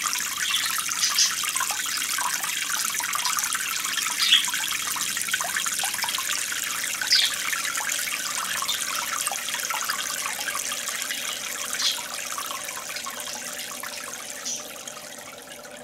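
Aquarium filter outflow: a steady splashing trickle of water with a few sharp drips, fading down near the end.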